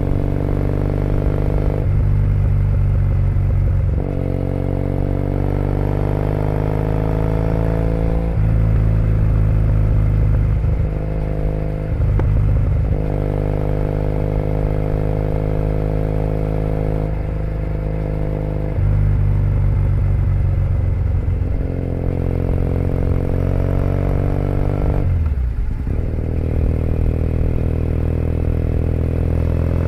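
2008 Triumph Bonneville T100's air-cooled parallel-twin engine running through aftermarket British Customs Predator pipes while the bike cruises. The engine note climbs gently, then changes step several times with the throttle and gears, and dips sharply once near the end.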